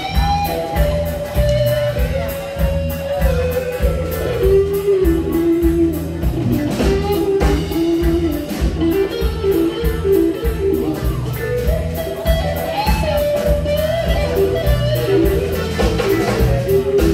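Live rock band playing: an electric guitar carries the lead with held, sliding notes over a steady drum beat, bass and keyboards.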